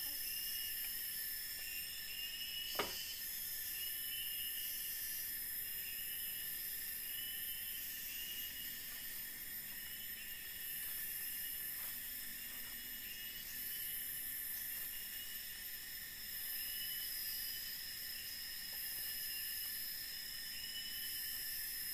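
Chorus of forest insects: a steady high-pitched whine and a layer of repeated pulsing chirrs, with a still higher shrill layer that switches on and off every few seconds. One sharp knock about three seconds in.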